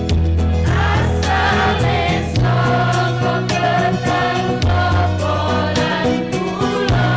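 School choir singing in parts over an instrumental accompaniment with held bass notes and a steady percussion beat.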